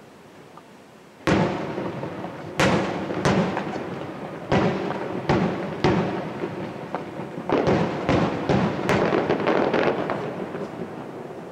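Aerial firework shells bursting: a string of sharp bangs starting about a second in, each trailing an echo, then a quick run of crackling pops near the end as the reports die away.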